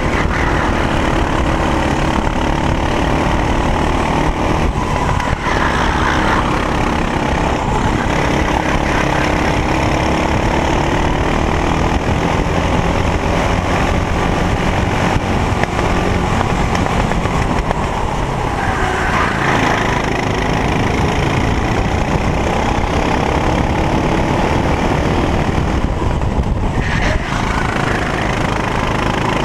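Racing kart engine at full race pace, heard from on board, its pitch climbing and dropping again and again as it accelerates out of the corners and eases for the next.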